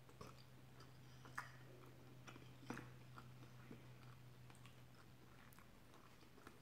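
Faint close-up chewing of a soft, saucy mouthful of chicken tikka masala and rice: quiet wet mouth noises with a few sharper clicks, over a low steady hum.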